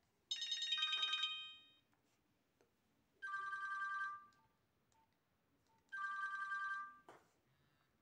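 Nokia 100 ringtone previews playing from the phone's speaker: a short electronic melodic phrase, then twice a brief two-tone electronic alert about three seconds apart, followed by a short click near the end.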